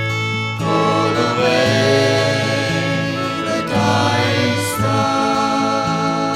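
Folk band music played on acoustic guitars and other instruments, with a steady bass pattern underneath.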